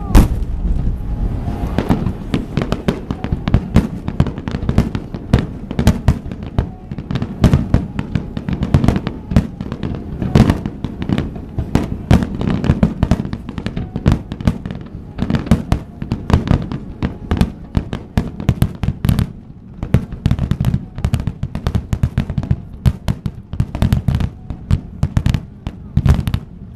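A rapid, continuous barrage of fireworks bursts, many bangs a second, with a short lull about two-thirds of the way through.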